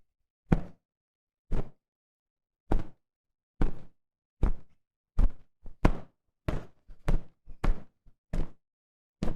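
A series of heavy, booming thuds from an added sound-effects track, each separated by dead silence. There are about fourteen, spaced about a second apart at first and coming faster and more unevenly in the second half.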